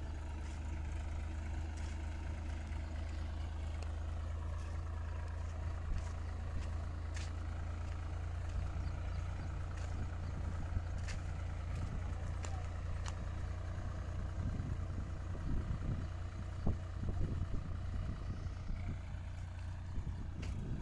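Massey Ferguson 9000 50 hp diesel tractor engine running steadily under load, pulling hoes through soil. A few light clicks come in the first half, and irregular low thumps and rustles in the second half.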